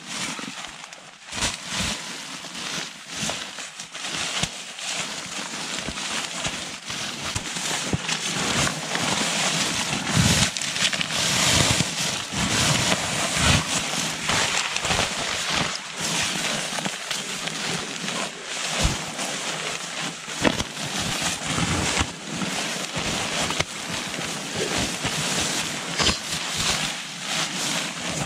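Western Mountaineering Bison sleeping bag's nylon shell rustling and crinkling as it is handled, an irregular run of crinkles and scrapes that grows louder about a third of the way in.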